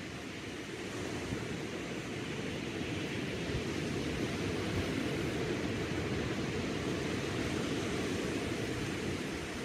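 Small waves breaking and washing up a sandy beach: a steady, low rush of surf that swells a little toward the middle.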